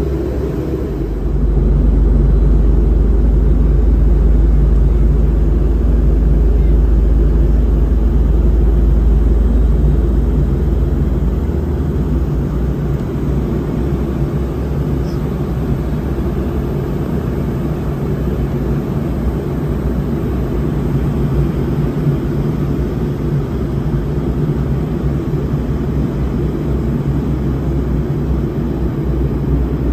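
Steady drone of an airliner cabin in flight. A deeper rumble swells about two seconds in and eases off around eleven seconds, leaving the even cabin noise.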